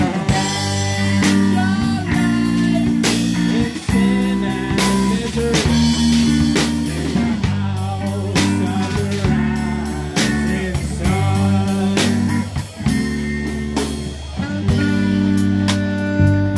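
A live band playing: saxophone, electric bass guitar and keyboard over a steady drum-kit beat.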